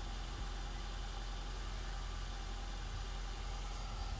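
Honda CR-V's engine idling steadily, a low even hum.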